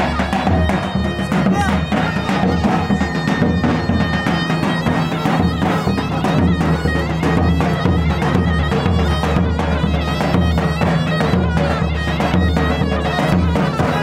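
Davul and zurna playing a lively folk dance tune: the zurna's reed melody carries over steady beats of the large double-headed davul drum.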